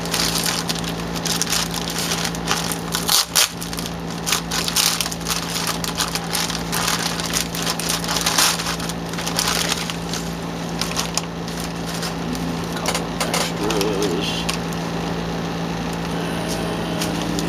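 Aluminium foil crinkling and crackling as a foil-wrapped package is unwrapped and flattened by hand, dense and busy for most of the time and easing off after about twelve seconds.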